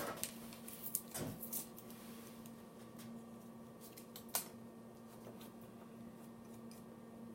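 Light clicks and rubbing as the small metal parts of a disassembled Lionsteel SR2 pocket knife are handled and wiped. Several come in the first two seconds and one sharp click about four and a half seconds in, over a steady low hum.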